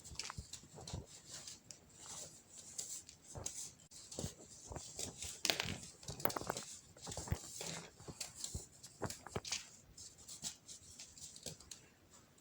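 Crumbles of compressed baking soda being crushed: an irregular run of soft crunches and crackles, some sharper and louder than others.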